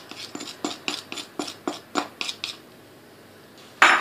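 A metal spoon scraping and tapping against a dish in quick short strokes, about four a second, as chopped peanuts are scraped into the ice cream mixture; the strokes stop after about two and a half seconds, and one louder clink of dishware comes near the end.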